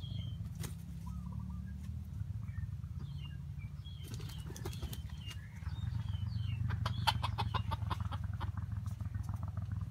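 Wild junglefowl rooster making soft clucking calls, with small bird chirps and a quick run of rapid clicks near the end, over a steady low rumble.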